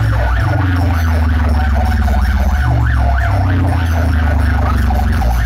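Loud sound-system music through large speaker boxes: heavy, booming bass under a fast siren-like tone sweeping up and down.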